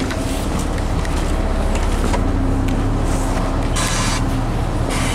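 LiAZ-5292 city bus running steadily with a low engine drone, with two short hisses of compressed air about four and five seconds in.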